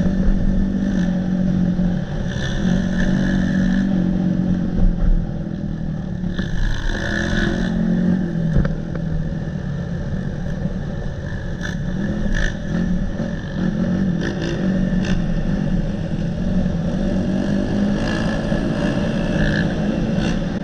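Dirt bike engine running, the throttle opening and closing so the engine note rises and falls, with a few sharp clicks and knocks mixed in.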